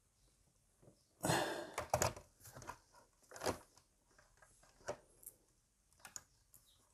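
Scattered light knocks and clicks from a robot vacuum being handled and set onto its charging dock, with a brief scrape about a second in.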